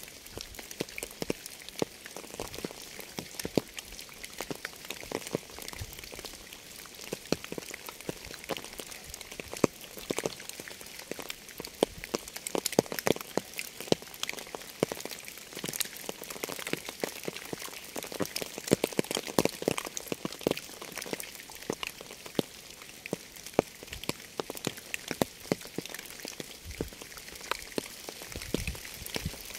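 Steady rainfall, with many separate raindrops ticking sharply against a surface over a continuous hiss.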